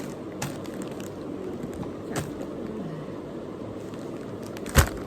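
Items being handled: a few light clicks and one sharp knock near the end, over steady low background noise.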